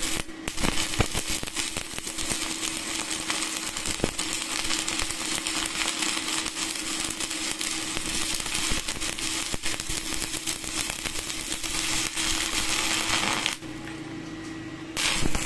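Stick (MMA) welding arc crackling steadily as a 10-gauge electrode burns on a steel plate, powered by a Spark 400 MMA DC inverter welder turned down to about 212 A. The arc breaks off suddenly near the end.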